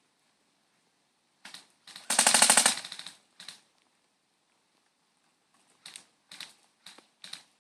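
Airsoft rifle firing a short full-auto burst of rapid shots about two seconds in, with a few single sharp clicks just before and after it and a run of evenly spaced clicks, about two a second, near the end.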